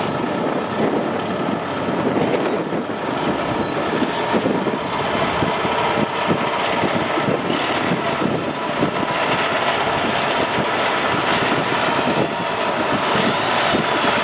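Large diesel engine running steadily with a rough, rapid clatter.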